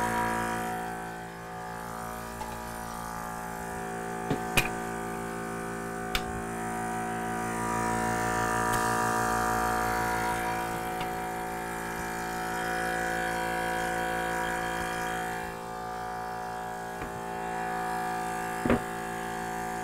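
Senco PC1010 oil-free compressor's half-horsepower electric motor and pump running steadily, building its 1-gallon tank up to pressure. A few short clicks sound over it.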